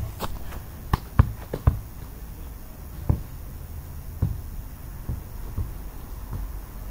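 A string of short, irregular light knocks and taps: four or five close together in the first two seconds, then a few sparser, fainter ones.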